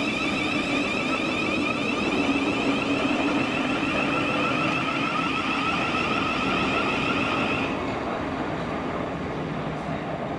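Thameslink Class 700 electric multiple unit moving along the platform, its traction equipment giving a steady high whine over the noise of wheels on rail. The whine cuts off suddenly about eight seconds in, leaving the wheel noise.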